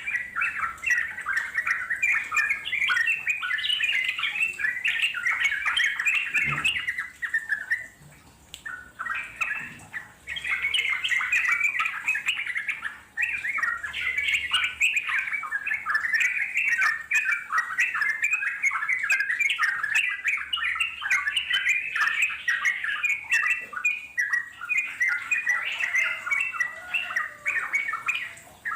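Sooty-headed bulbul (trucuk) singing long, rapid, chattering runs of notes, with brief breaks about eight and thirteen seconds in.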